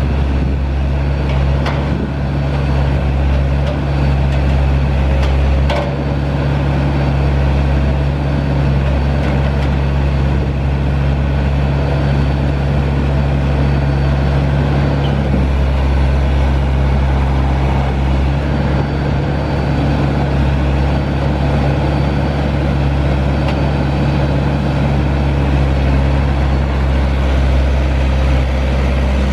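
Perkins diesel engine of a Kramer 808 wheeled excavator running steadily as the machine drives slowly, with a couple of light knocks about two and six seconds in.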